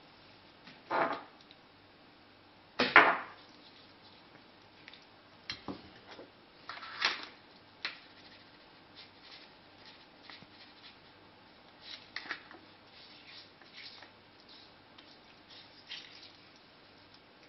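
Hands seasoning a raw bone-in pork chop on a plate: scattered brief rustles and knocks of meat, fingers and a paper spice packet, the loudest about three seconds in, over a faint steady hum.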